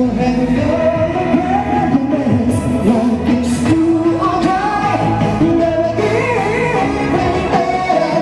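A woman singing a pop ballad into a microphone over an instrumental backing, holding long notes that slide between pitches.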